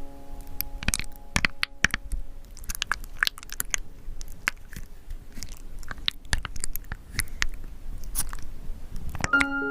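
Paint being stirred and mixed close up: an irregular run of small clicks and crackles. Music notes linger in the first couple of seconds and come back just before the end.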